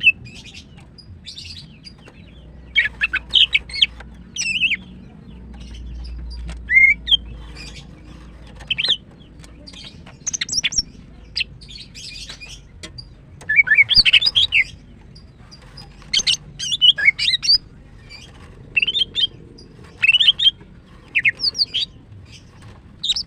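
Female greater green leafbird (cucak ijo) calling in short bursts of quick, high chirps, one burst every second or two. She is a hen in breeding condition, calling for a male.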